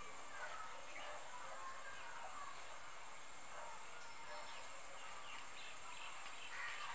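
Faint background of scattered bird chirps over a steady high-pitched hiss, with a few louder calls near the end.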